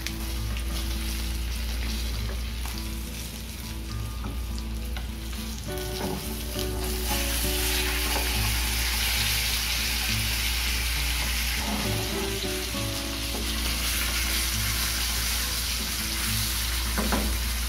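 Salmon steak sizzling in browned butter in a nonstick frying pan. The sizzle grows louder and fuller about seven seconds in, once the steak has been flipped onto its uncooked side.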